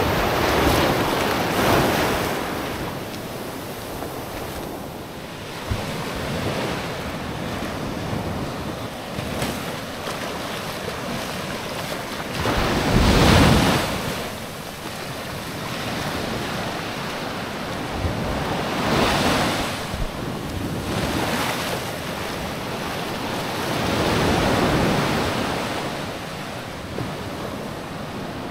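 Small waves breaking and washing up on a sandy shore, the surf swelling and fading every few seconds, loudest about halfway through. Wind on the microphone.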